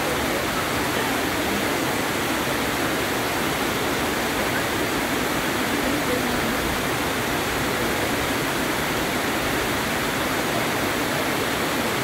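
Waterfall: falling water making a steady, even rushing noise with no breaks or changes.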